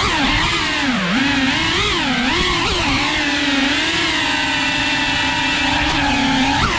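FPV quadcopter's motors and propellers whining, the pitch dipping and rising with the throttle in the first few seconds, then holding fairly steady before a quick jump up and back near the end.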